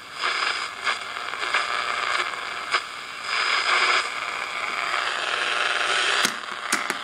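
Small 11-band shortwave radio's speaker hissing with static while being tuned across shortwave band four, with crackles and a high steady whistle that comes in twice as the tuning passes signals.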